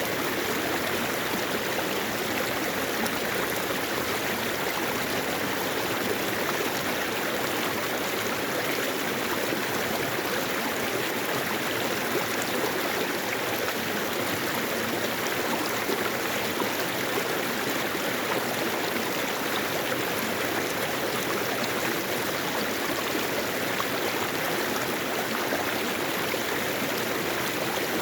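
Mountain valley stream flowing, a steady rush of water that neither swells nor breaks off.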